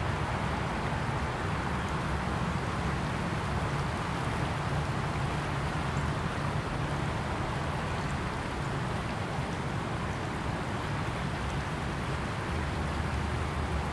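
Small river's current rushing and splashing steadily, with a low rumble underneath.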